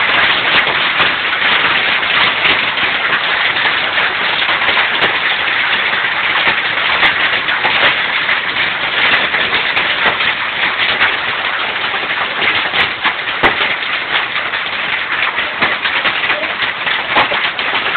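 Hailstorm: heavy rain pouring down in a dense, steady hiss, with many sharp clicks of hailstones striking hard surfaces.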